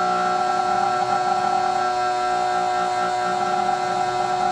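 24-volt DC drill motor spinning a CD at high speed, a steady whine with several tones.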